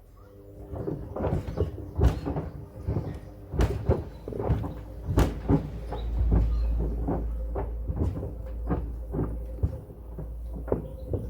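Pieces of wood tumbling in the drum of a Hoover washing machine, knocking irregularly against the drum over the steady hum of the machine's motor. A low rumble builds up about halfway through.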